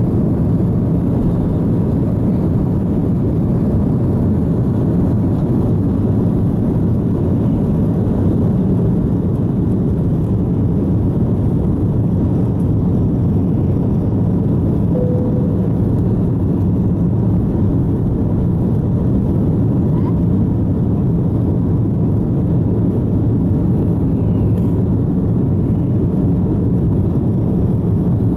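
Airbus A330-200 jet engines at takeoff thrust, heard from inside the cabin over the wing: a steady, deep rumble through the takeoff roll, liftoff and initial climb.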